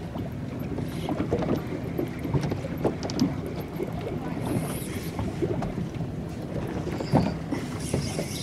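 Wind buffeting the microphone and water lapping against a small fishing boat's hull, with a few faint scattered knocks and a sharper knock about seven seconds in.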